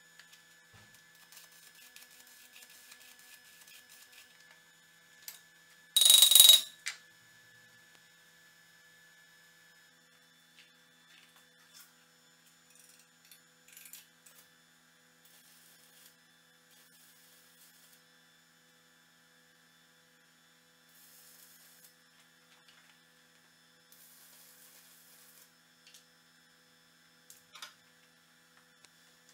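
Faint steady electrical hum with scattered light clicks and short hissing patches. About six seconds in comes one loud burst of noise lasting under a second.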